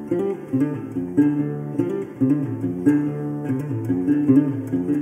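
Background music: plucked guitar over a bouncing, repeating bass line.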